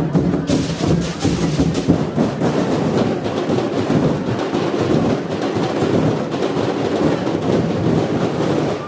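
Drum and percussion ensemble of a street-dance tribe playing a loud, dense, driving beat of many drums and knocking percussion.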